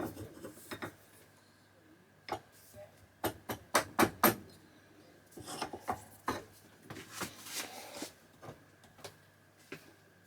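Sharp metal clicks and knocks, with a quick run of louder ones about three to four seconds in and some rubbing scrapes after: a small brass bush and its steel bracket being handled and worked in a press as the bush is pressed in and its edge flanged over.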